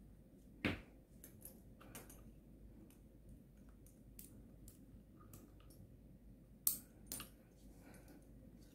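Metal D-rings and clips clinking as a rubber resistance tube band is hooked onto nylon straps: a few sharp clicks, one about a second in and two close together near the end, with faint handling ticks between.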